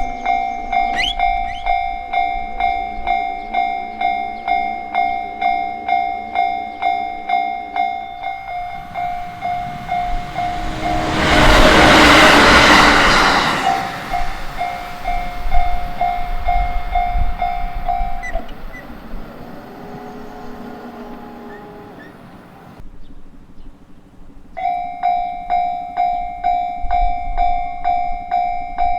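Japanese railway crossing alarm bell ringing in a steady repeated ding, about one and a half strokes a second. A Yamagata Shinkansen train rushes through at speed, swelling to a loud peak a little before the middle and fading off. The bell stops a few seconds later, and after a short lull it starts ringing again near the end.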